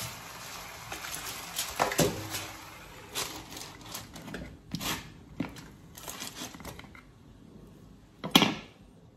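Aluminium foil crinkling as it is tucked over a wok, and a wooden lid set down and pressed onto it, with scattered knocks and a louder knock near the end.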